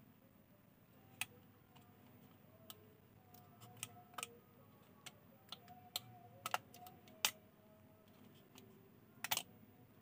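Faint, irregular light clicks and taps of small plastic phone parts: an LCD screen being handled and pressed into the housing of a keypad mobile phone. About ten clicks, the sharpest a little past the middle and a quick double click near the end.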